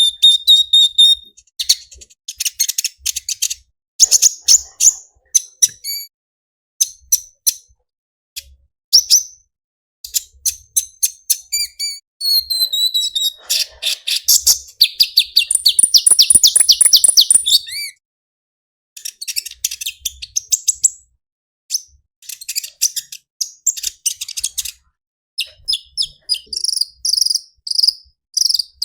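Sunbird (kolibri ninja) singing: high, rapid chirps and trilling phrases broken by short pauses, with one long fast trill near the middle.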